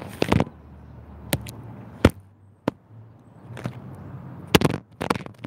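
A hoverboard rider falling off: a string of sharp knocks and clatters, about six in all, as the board and rider hit the ground.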